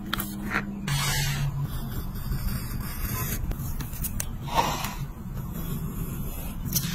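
Paper sticker sheet and planner pages being handled: two short rustling swishes of paper and a couple of light clicks near the end as a craft knife meets the sheet, over a steady low hum.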